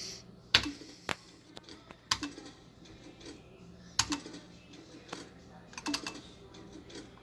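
Slot machine buttons pressed repeatedly: sharp plastic clicks, about seven of them, spaced irregularly, each followed by a faint short tone from the machine.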